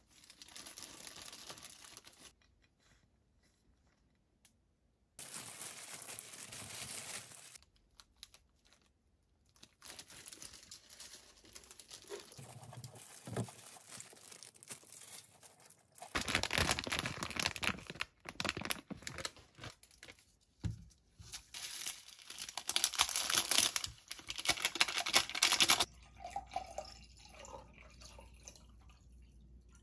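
Disposable plastic gloves crinkling and rustling as gloved hands pick up and handle slices of kimbap, in several stretches that start and stop abruptly.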